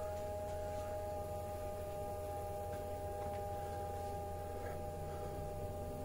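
Small 12-volt hot water circulation pump running steadily, a constant electric hum with two high steady whining tones over it, as it circulates water through a newly plumbed heating loop that is being purged of trapped air.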